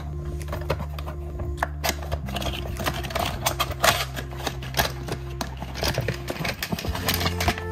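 Background music with steady low sustained notes, over frequent sharp clicks and taps from diecast model cars and their packaging being handled. The low notes stop about six seconds in and a new tune begins near the end.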